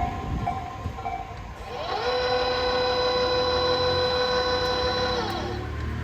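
A level crossing alarm pulsing over the low rumble of a train, stopping just after a second in. Then an electric train's horn sounds one long steady note for about three and a half seconds, its pitch sliding up as it starts.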